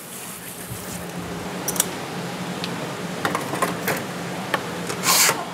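Spray hose hissing briefly as it rinses a plastic cutting board, then a few clicks and clatters of tools in a stainless-steel tray. Near the end a stiff scrubbing brush starts scraping back and forth across the board in loud strokes.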